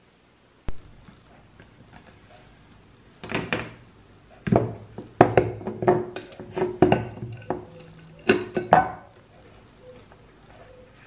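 A single sharp click, then a run of knocks and clatters of hard objects being handled indoors, with short ringing between about three and nine seconds in.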